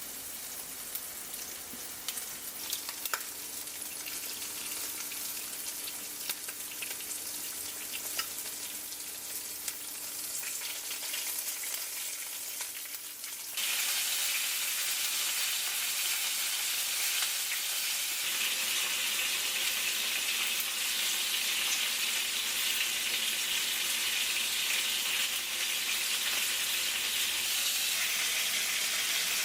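Food frying in a pan: a steady sizzle with a few light clicks, jumping suddenly louder about 13 seconds in.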